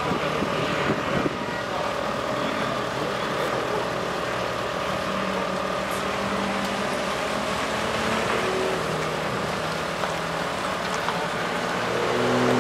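Citroën Saxo rally car engine idling steadily, its idle speed wavering slightly. Near the end the engine speed and loudness begin to rise as it starts to rev.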